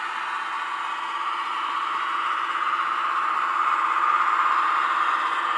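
Sound-fitted Hornby Sentinel 0-6-0DH model diesel shunter: its ESU LokSound decoder plays diesel engine running sound through a small Sugarcube speaker, a steady, thin engine drone that grows a little louder about four seconds in.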